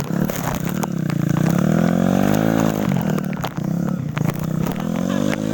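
Off-road motorcycle engine revving, its pitch rising and falling several times with a dip about three and a half seconds in.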